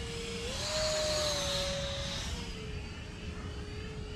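Electric motor of a 3D-printed RC Mirage 2000 jet whining in flight at about half throttle, cruising. The pitch steps up about half a second in and eases back down a little after two seconds.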